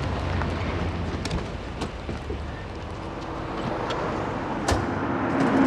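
Street traffic and a car engine running, with a low hum in the first half and a few sharp clicks and knocks, the loudest near the end.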